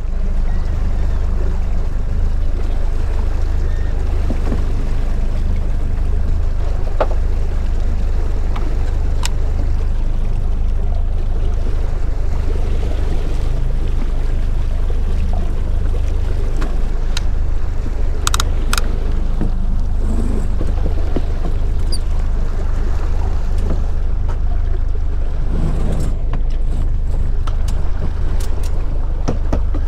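Outboard motor running steadily at trolling speed, a continuous low drone mixed with water rushing past the hull. There are a few sharp clicks about a third of the way in, around the middle and near the end.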